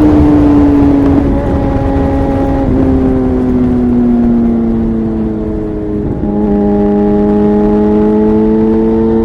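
2009 Suzuki GSX-R 750 inline-four running loud through a Yoshimura exhaust. Its note sinks slowly and steps lower twice, about three seconds in and again about six seconds in, with a brief dip in loudness at the second step.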